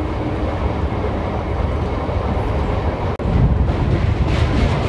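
MEMU electric train running at speed, heard from on board as it crosses the Krishna river: a steady rumble of wheels on rails, broken by a momentary drop-out about three seconds in.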